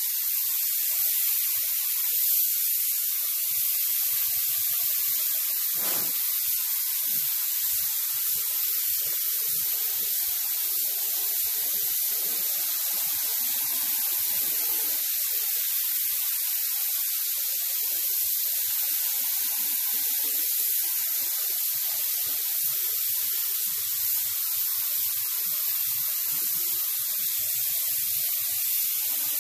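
Compressed-air gravity-feed paint spray gun hissing steadily as it lays a light coat of clear onto sheet-metal interior panels.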